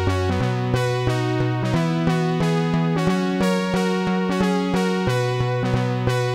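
Background music: synthesizer and electric-piano chords over a steady beat, with the low bass note changing every second or two.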